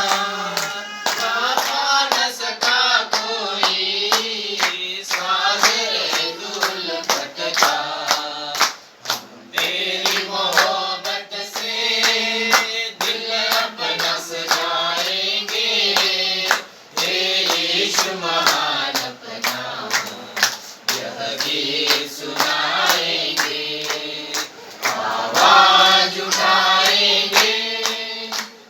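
A group of voices singing together in chorus, with sharp percussive hits throughout and brief pauses between phrases.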